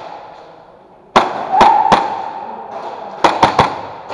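Airsoft gunfire: sharp cracks, one about a second in, two more under a second later, then a quick run of three near the end.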